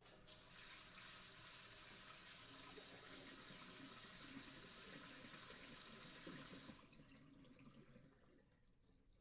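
Water sprayer spraying in one continuous hiss for about six and a half seconds, then cutting off, followed by a faint, irregular tail of water sounds.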